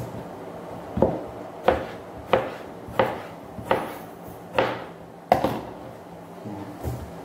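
Kitchen knife slicing eggplant on a cutting board: about eight sharp chops, roughly one every two-thirds of a second, the last one lighter.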